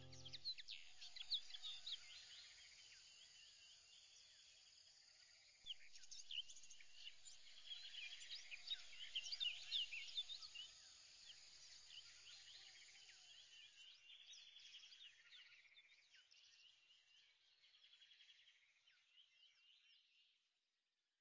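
Faint birdsong: many small birds chirping and trilling together, louder around the middle and fading out near the end.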